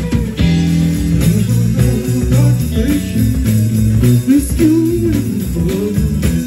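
Live rock band playing: amplified electric guitars, bass and drum kit with cymbal strokes. A lead line bends up and down in pitch about four to five seconds in.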